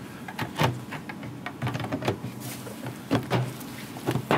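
Plastic bottom panel of an ASUS ROG Strix Scar II gaming laptop being set onto the chassis and pressed down by hand, giving a run of irregular clicks and light knocks as its plastic retention clips snap into place.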